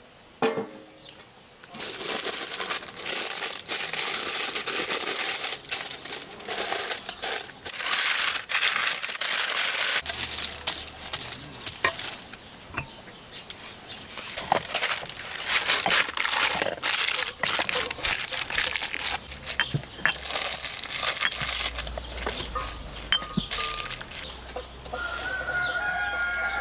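Hands working over a pizza in an aluminium pan: rustling and light clicks as grated cheese and salt are scattered over the toppings. A hen clucks briefly near the end.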